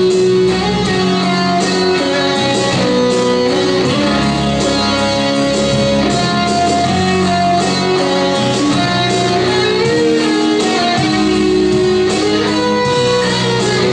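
Music: a Les Paul-style electric guitar plays an instrumental passage of a song, holding sustained notes that change every second or so.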